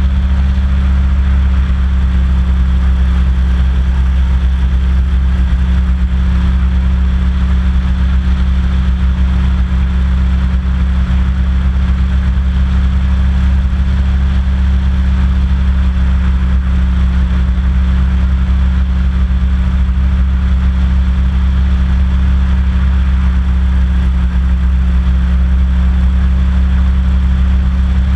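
Hovercraft engine and fans running steadily while cruising over calm water: a constant low drone with an even hiss above it, with no change in speed.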